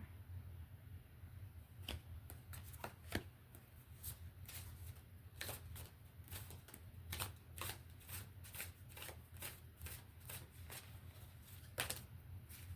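A deck of divination cards being shuffled by hand: irregular flicks and snaps of the cards beginning about two seconds in, over a steady low hum.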